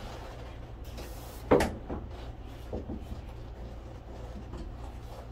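A heavy cable being handled and pushed up through a cable gland into an inverter's sheet-metal case: one sharp knock about one and a half seconds in, then a few lighter taps and rustles. A steady low hum runs underneath.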